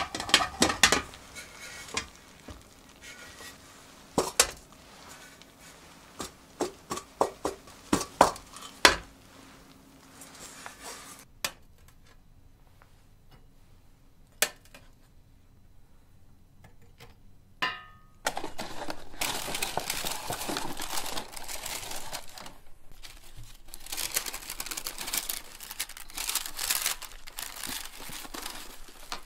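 Metal canelé molds clinking and knocking against a baking tray as the cakes are turned out, a string of sharp clicks in the first half. Later, steady crinkling of wax paper and a paperboard box as the canelés are wrapped and packed.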